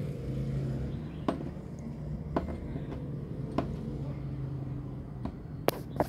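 Multimeter probe tips clicking against solder points on a circuit board: about five sharp taps roughly a second apart. Under them a steady low hum fades out near the end.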